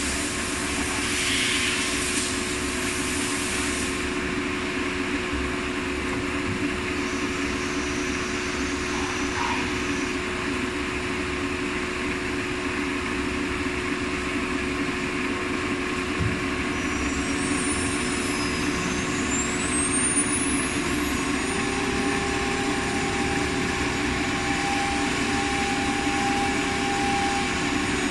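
CNC router with a 9 kW air-cooled automatic tool-change spindle running: a steady machine hum with one constant tone throughout. A few high whistling glides come about two-thirds of the way through, and a second steady tone joins soon after, as the spindle works on MDF near the end.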